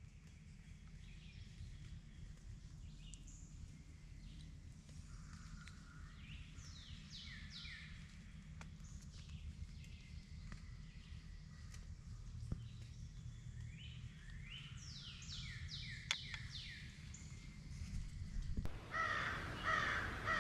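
Woodland bird sounds over a low steady rumble. A songbird sings twice, each time a run of quick high notes that sweep downward. Near the end, after a change in the background, crows caw several times.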